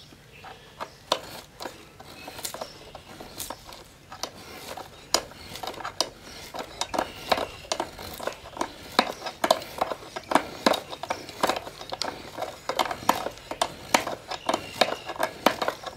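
Hand-forged stock knife, its hooked end pivoting in a rebar loop, paring wood in repeated levered strokes: irregular sharp clicks and short scrapes of the blade biting and the hook shifting in its loop, coming faster in the second half.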